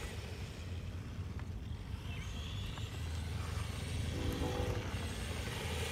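Ingqu SL-119A 1/12-scale RC monster truck driving across concrete, its brushed 390 motor and tyres faint over a steady low rumble, growing louder toward the end as it comes closer.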